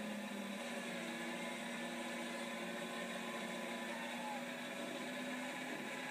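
John Deere 6R210 tractor's six-cylinder diesel engine running steadily under load while pulling a plough, a constant droning hum.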